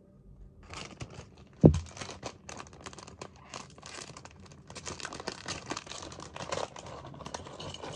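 LEGO Super Mario Series 2 blind-bag packaging being torn open and crinkled by hand, a dense run of crackling and rustling, with one sharp low thump a little under two seconds in.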